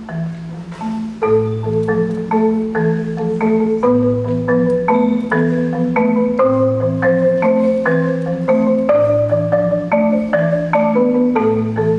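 Solo marimba played with mallets: a steady flow of notes over a low bass note that comes back about every two and a half seconds.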